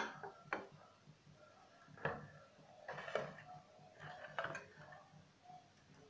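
Faint, scattered clinks and knocks of a stainless steel pan on a gas stove, about half a dozen sharp taps spread over several seconds.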